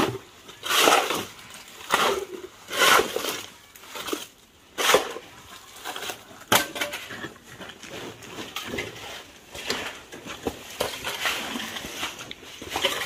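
Shovels scraping and scooping through wet concrete mix and dumping it into a wheelbarrow. The strokes come about once a second for the first five seconds, then give way to lighter, irregular scraping.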